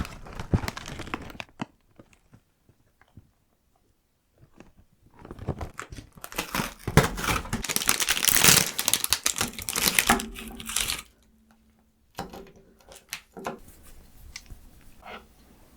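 Crinkly wrapper being handled and torn open: a short burst of crackling, a pause, then a long loud stretch of crinkling and tearing, followed by a few softer rustles and clicks.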